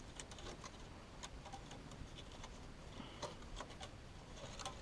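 Faint, irregular clicks and light knocks of small dry sticks tapping together as they are handled and woven into a stick cage.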